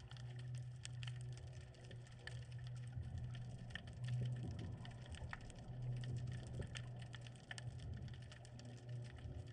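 Underwater ambience picked up by a submerged camera: dense, irregular clicking and crackling over a steady low hum.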